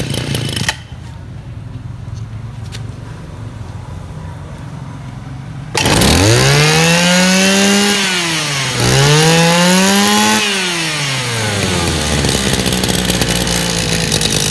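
Mitsubishi TL23 23cc two-stroke brush-cutter engine idling on a test run. About six seconds in it is revved up twice, each rev held about two seconds with the pitch climbing high. It then drops back to a steady idle.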